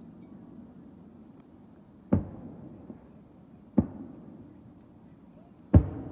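Three firework bursts going off, about two seconds apart, each a sharp boom that trails off briefly; the third is the loudest.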